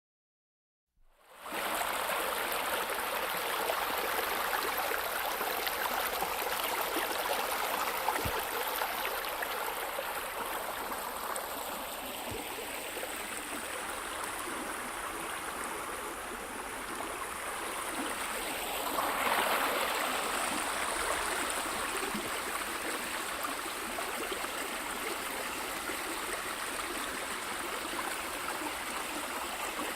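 Babbling stream: water running steadily, starting about a second in and swelling slightly about two thirds of the way through.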